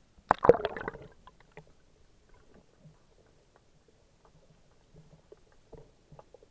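Water splashing and gurgling against an action camera's waterproof housing as it dips below the surface, loudest for about half a second near the start, then faint muffled underwater ticks and clicks.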